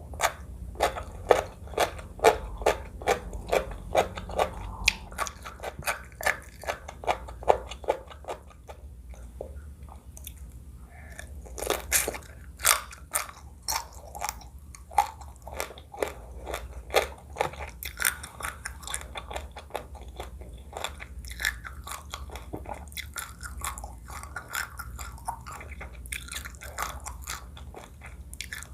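Close-miked chewing and biting of crunchy food, with sharp crunches and wet mouth sounds repeating a couple of times a second; the crunches come most densely from about 11 to 18 seconds in.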